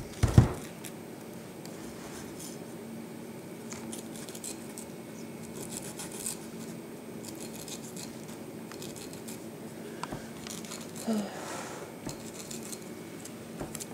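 Pineapple slices being pushed and shifted by hand on a plastic mesh dehydrator tray: light scraping and rubbing with small ticks, and one sharp thump about half a second in. A steady low hum runs underneath.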